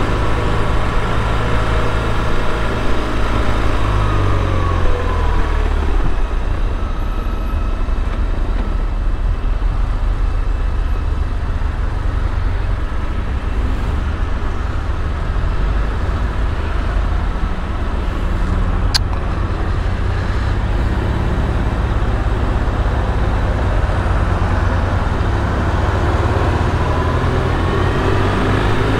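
BMW R1150RT's boxer twin engine on the move in slow traffic. The revs fall over the first few seconds, it runs steadily at low speed, and the revs rise again near the end as it pulls away, over road and traffic noise. A single brief sharp click comes about two-thirds of the way in.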